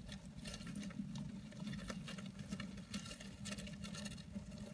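Small rodents scurrying through wood-shaving bedding: faint, irregular light rustling and pattering.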